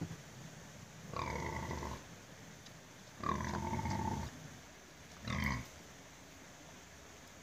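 A woolly-coated pig grunting three times, the first two about a second long each and the last one short.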